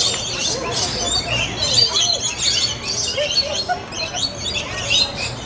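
A flock of lorikeets chattering: a dense, continuous mix of short, high chirps and squeaky calls overlapping one another.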